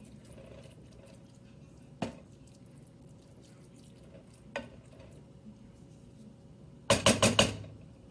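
A cooking spoon knocking against a glass casserole dish as a meat-and-cheese mixture is spread in it: a single knock about two seconds in, another about halfway, then a quick run of about five louder knocks near the end.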